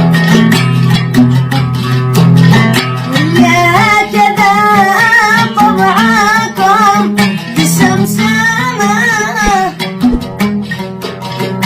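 Traditional Yemeni song: a plucked lute picks out a melody, then a man sings a long ornamented phrase over it for about six seconds, and the lute carries on alone near the end.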